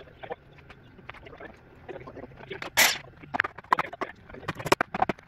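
Wooden 2x4 boards being handled and fitted into a wooden frame: a short scrape of wood on wood about three seconds in, then a run of sharp knocks as the boards are set in place.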